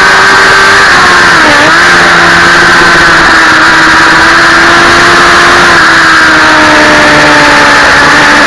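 Onboard sound of a Suzuki GSX-R600 K9's inline-four engine running at high revs on track, buried in heavy wind noise on the microphone. The engine note dips briefly about one and a half seconds in, then holds nearly steady, stepping slightly lower near the end.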